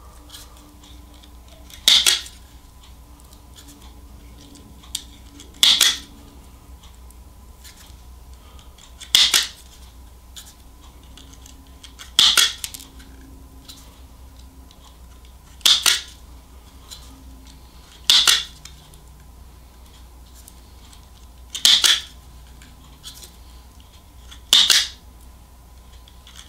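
Automatic wire strippers snapping shut about eight times, every three seconds or so, each squeeze gripping, cutting and pulling the insulation off the end of one harness wire.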